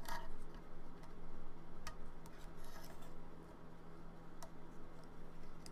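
Rubber band being stretched and hooked around a small 3D-printed plastic catapult by hand: scattered light clicks and brief rubbing of the plastic parts, over a low steady hum.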